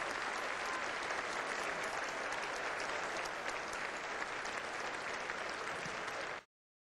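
A large audience applauding, steady dense clapping that cuts off abruptly near the end.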